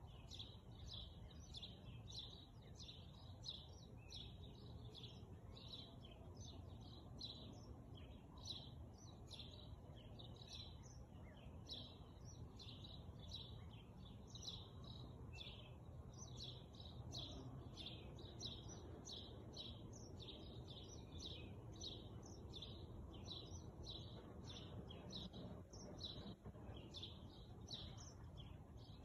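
A bird chirping over and over, short high chirps about one or two a second, faint over a low steady background rumble.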